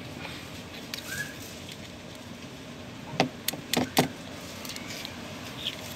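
A few sharp clicks and knocks, about three to four seconds in, as a scissor blade and a small glass bottle of contact cement are handled against each other over a steady low background hum.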